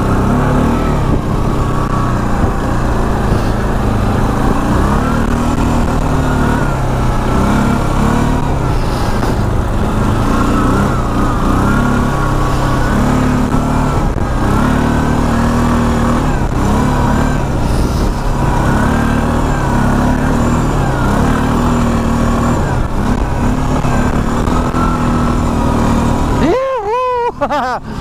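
CFMoto 625 ATV's single-cylinder four-stroke engine running under way through snow, its note stepping up and down with the throttle. About a second before the end it briefly dips and wavers.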